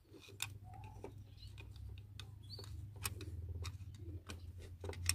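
Alternator being worked loose from its mounting in a VW Polo engine bay: scattered light metallic clicks and knocks, with a couple of short squeaks, over a low steady hum.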